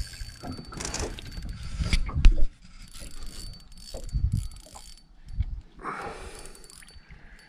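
Spinning reel clicking and whirring as an angler plays a hooked flathead beside the boat, with irregular knocks and handling noise, the loudest knock about two seconds in.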